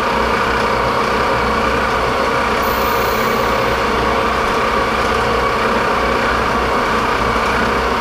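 Martin lathe running steadily at 1500 RPM, a constant machine drone, while a carbide insert takes a turning cut on a small part held in a 5C collet.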